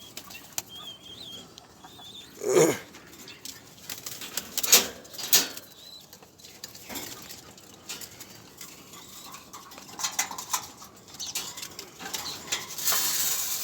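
Domestic pigeons flapping their wings in several short flurries, with a longer flurry near the end.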